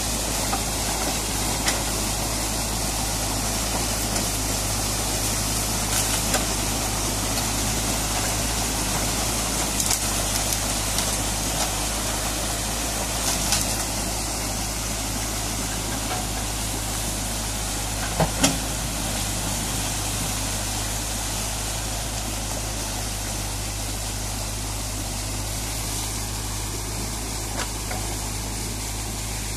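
Muddy stream water gushing through a freshly opened breach in a beaver dam, with an excavator's engine running steadily underneath. A few short knocks, a sharper pair about 18 seconds in, and the rush eases slightly toward the end.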